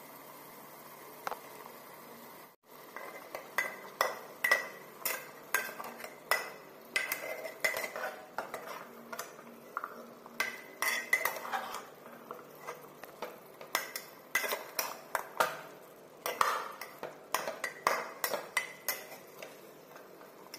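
Metal spatula stirring chunks of jackfruit and potato in curry in a metal pressure cooker pot, knocking and scraping against the pot's sides in irregular clinks, one or two a second. The stirring starts about two and a half seconds in, after a faint steady hiss.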